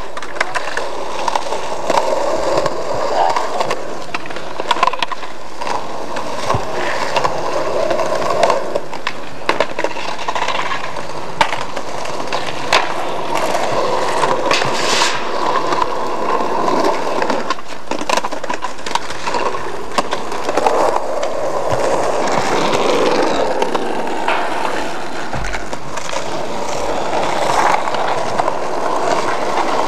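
Skateboard wheels rolling over pavement, a continuous rough rolling noise, with sharp clacks of the board popping and landing every few seconds.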